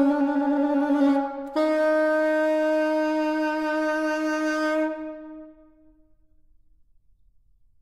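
Unaccompanied alto saxophone playing the last notes of a piece: a short note, then a long held final note a step higher that fades away about five seconds in.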